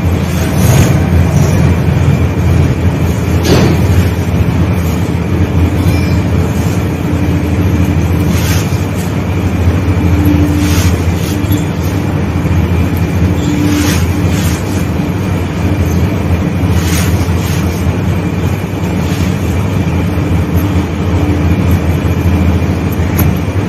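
Damp, gritty sand-cement mixture being crushed and raked by hand against a floor. It makes a continuous low, grinding rumble with scattered sharper crunches as clumps break apart.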